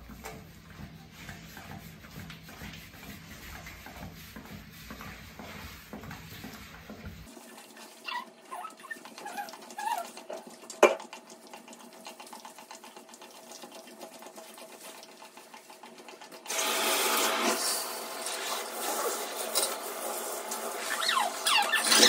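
A greyhound licking a rubber licking mat stuck to the tub wall, giving quiet, rhythmic wet licks, with one sharp knock about 11 seconds in. About 16 seconds in, a handheld shower head comes on and water runs steadily onto the dog and into the tub.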